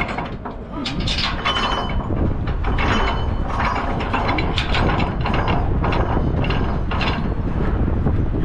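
Repeated metallic clicks and rattles, a few each second at uneven spacing, over a steady low rumble.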